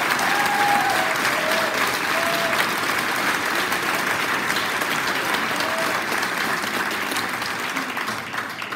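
A large audience applauding: dense, steady clapping that thins out and fades away near the end.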